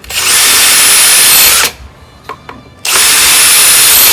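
Devon 5283-Li-20TSI 20 V cordless drill with an 8 mm tile bit running in two bursts of about a second and a half each, with a steady high whine that starts and cuts off sharply each time and a short pause between.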